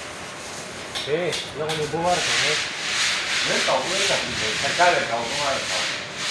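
A steady, rough rubbing noise, with a few men's voices talking briefly in the background.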